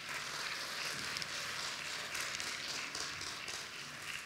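Audience applauding, starting all at once and easing off near the end.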